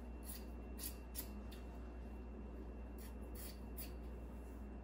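Scissors snipping through woven fiberglass cloth: a few short, crisp cuts near the start and another few about three seconds in, over a steady low hum.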